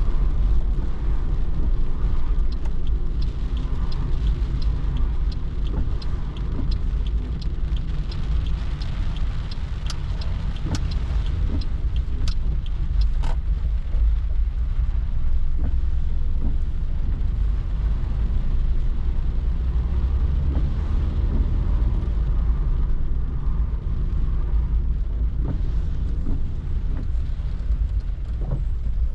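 Steady low rumble of road and tyre noise inside a moving car's cabin on wet roads. From about two seconds in to about thirteen seconds in, the turn indicator ticks about twice a second, signalling a left turn.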